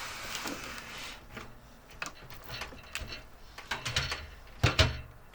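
Computer case and parts being handled and fitted by hand: scattered clicks and knocks, with a louder double knock near the end.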